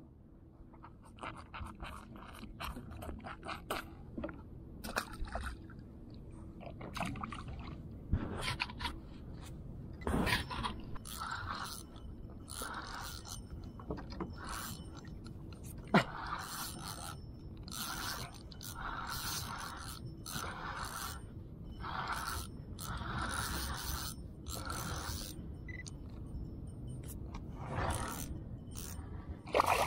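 Spinning fishing reel being cranked to bring in a hooked fish: gears and handle scraping in regular turns, about one a second, with a sharp knock partway through.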